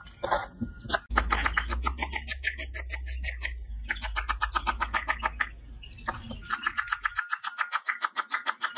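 Chef's knife slicing a red onion on a wooden chopping board: quick, even strokes of the blade onto the wood, about seven a second.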